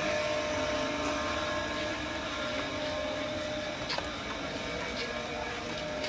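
Steady hiss of heavy rain on a city street, with a constant motor hum running underneath and a few sharp ticks.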